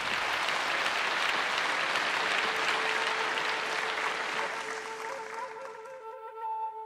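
Audience applauding, dying away over the last second or so. About two seconds in, a flute enters with one long held note that carries on as the clapping fades.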